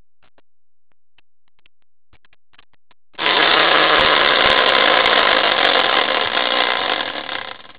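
A homemade prize wheel made from a caster wheel is spun by hand. It starts with a sudden loud, rapid rattle about three seconds in, which holds steady and then fades out near the end.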